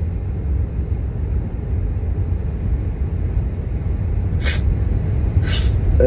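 Steady low rumble of a car cabin, with two short breathy sniffs near the end from a person with a runny nose.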